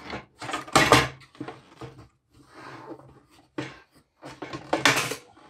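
Headlight assembly being handled and worked free of a Jeep Grand Cherokee ZJ header panel: irregular knocks, scrapes and rattles of plastic parts. The loudest come about a second in and near the end, with a softer scraping in between.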